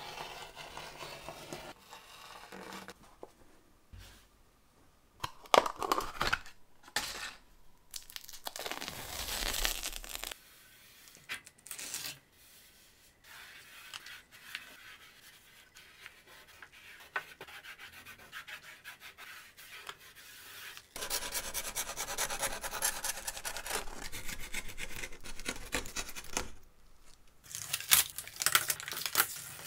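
Handwork sounds: a rotary cutter rolling through felt against a metal frame, then strips of double-sided tape being laid down and rubbed flat, and near the end the tape's backing being peeled off with a tearing sound.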